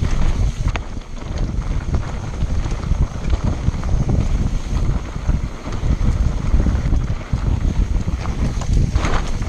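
Wind buffeting the microphone of a camera on a mountain bike riding fast down a rocky dirt trail, over the rumble and rattle of the tyres and bike on rough ground. A brief, brighter rush of noise comes near the end.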